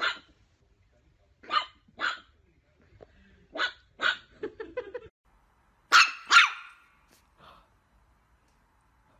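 Small Chihuahua barking in sharp single yaps, some in quick pairs, with a short lower stutter just before five seconds. The two loudest barks come close together about six seconds in, and it goes quiet near the end.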